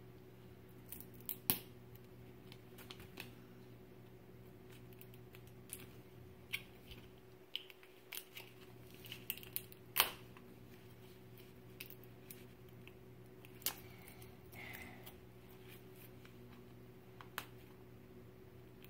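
Faint handling of a small plastic packet: scattered sharp clicks and crinkles as it is tugged and picked at, with a brief rustle about three-quarters of the way through. A steady low hum lies underneath.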